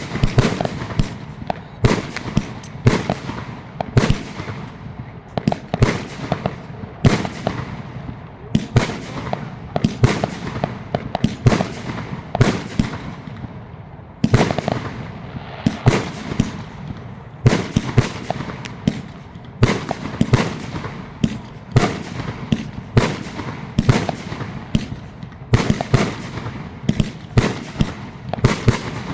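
Fireworks going off in a dense, continuous barrage: sharp bangs, one to several a second, each trailing off in a short crackling echo.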